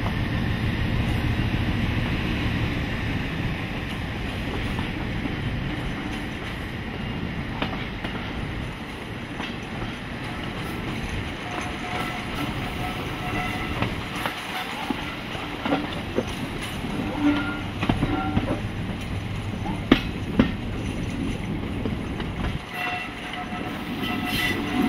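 Class 56 diesel-electric locomotive 56303 running just ahead of the carriage, its Ruston-Paxman 16-cylinder engine a heavy rumble along with the carriage wheels on the track. The rumble eases about halfway through, and scattered clicks and brief squeals from the wheels follow as the train takes the curve.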